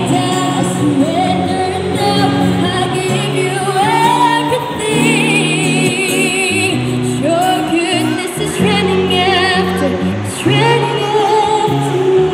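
A young woman singing into a microphone, accompanied by strummed acoustic guitar, both amplified through a small combo amp. She holds notes with vibrato over steady guitar chords.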